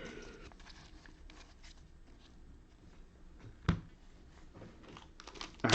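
Faint rustling and sliding of football trading cards handled between the fingers, with one sharp tap about two-thirds of the way through and a few small clicks near the end.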